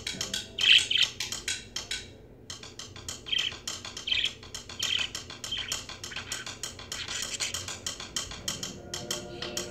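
Budgerigar chattering: a fast, continuous run of clicks and short high chirps, with a brief pause about two seconds in.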